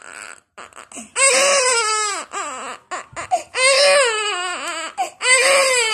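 Newborn baby crying hard: after a second of short gasps, three long wailing cries, each falling slightly in pitch at its end.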